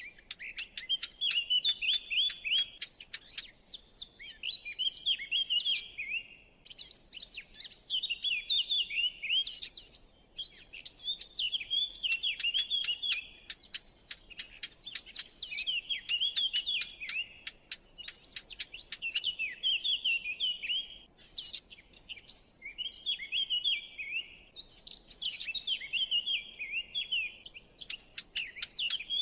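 Recorded songbird song used as a hunting lure, the birds called tayyan, khouri and shammas in Arabic, likely small warblers: scratchy warbling phrases mixed with rapid dry ticking clicks, each phrase a few seconds long and repeated after short pauses, about eight times.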